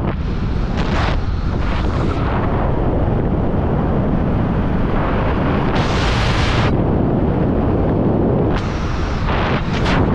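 Wind buffeting a helmet camera's microphone during parachute canopy flight: a loud, steady rumble with brief surges of hiss about a second in, around six seconds in and near the end.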